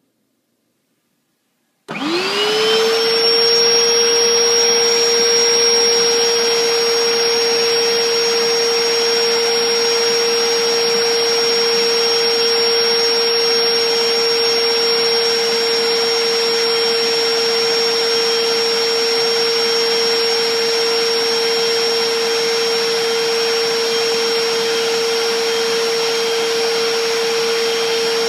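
Bissell SpotBot Pet portable spot cleaner starting up about two seconds in: its motor whine rises quickly to a steady pitch, then runs on evenly over a steady rushing noise.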